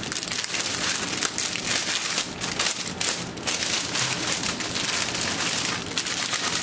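Small plastic bags of diamond painting drills crinkling and rustling as they are handled: a dense, continuous patter of tiny crackles.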